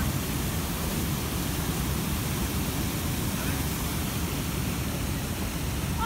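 Waterfall pouring into a rocky plunge pool: a steady, even rush of falling and churning water.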